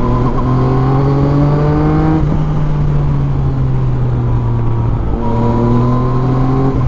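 Yamaha MT-09's inline three-cylinder engine through an Akrapovic carbon full exhaust system, pulling under light throttle with its pitch slowly rising. The pitch drops at a gear change about two seconds in and again about five seconds in, then climbs once more.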